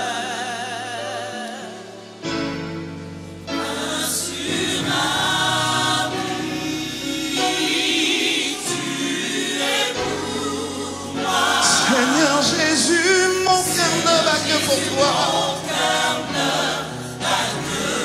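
Gospel choir singing a slow French worship song in harmony. A held chord fades over the first two seconds, then the choir comes back in and swells, louder from about eleven seconds in.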